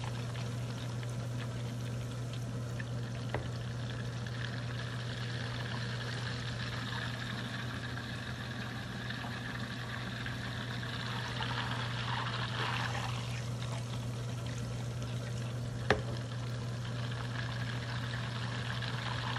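Butter sizzling and bubbling steadily in a stainless steel saucepan on an electric cooktop, over a constant low hum. A sharp click about sixteen seconds in.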